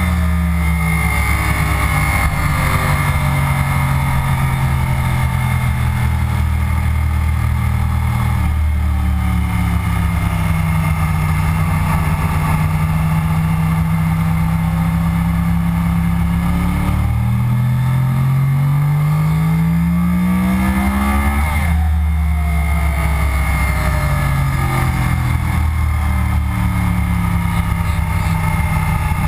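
2009 Yamaha R1's crossplane inline-four engine at track speed over steady wind noise: the engine note falls and rises through the corners, then climbs steadily under hard acceleration and drops suddenly at an upshift about three-quarters of the way in.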